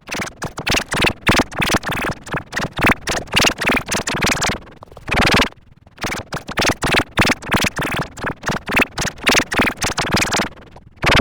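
A heavily distorted, harsh, rapidly stuttering edit of the 'huh' meme sound effect, chopped into many hits a second with a brief break about halfway through.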